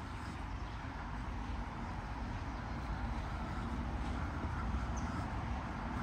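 Water of the Schiessentümpel cascade tumbling over rocks: a steady rush with a deep rumble underneath.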